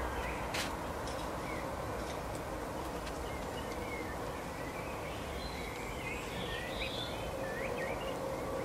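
Small songbirds chirping in short, scattered calls over a steady background hiss with a faint low hum.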